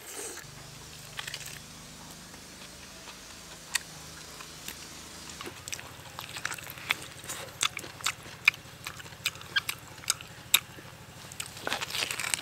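Mouth sounds of eating braised beef hoof held in the hands: biting, tearing and chewing the soft, sticky meat, with many short wet smacks and clicks that come more often from about four seconds in and bunch together near the end.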